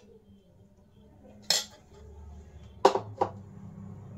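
Metal spoon clinking against the dishes while salad is served: one clink about a second and a half in, then two close together about three seconds in.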